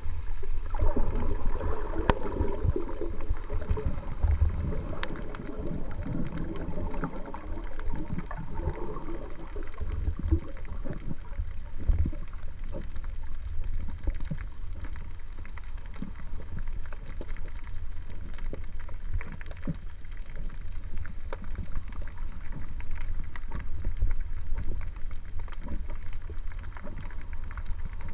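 Underwater sound picked up by a GoPro Hero 3 Black in its waterproof housing: a steady low rumble with scattered clicks and crackles, and louder water movement through roughly the first ten seconds.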